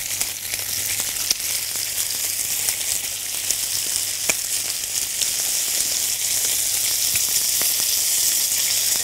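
Thin slices of pork belly sizzling in hot olive oil in a frying pan, a steady hiss. A few light clicks of a metal spatula against the pan as the slices are turned, the clearest about four seconds in.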